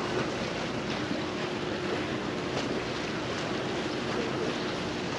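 Wind and sea waves washing around a pier, an even rushing noise, with a faint steady low hum underneath.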